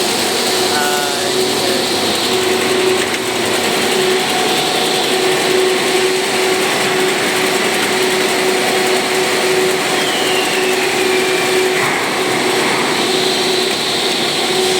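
Steady machine whir and hum, with a constant low tone and a faint high whine, from equipment running on a repaired INVT GD200 75 kW variable-frequency drive.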